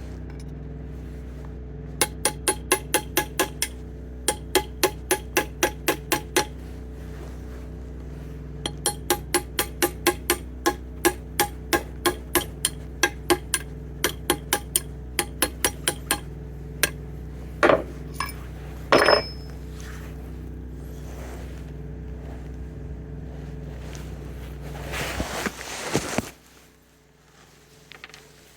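Hammer tapping on a pin punch, driving a pin out of a gearbox shift shaft: quick ringing metallic pings, about five a second, in two long runs, then a few single strikes. A steady low hum runs underneath and stops shortly after a brief rustling noise near the end.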